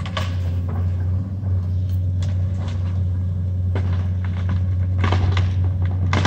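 Hydraulic excavator's diesel engine running with a steady low hum while its boom tears at an old linden tree, with repeated cracking and snapping of breaking wood, thickest from about five seconds in.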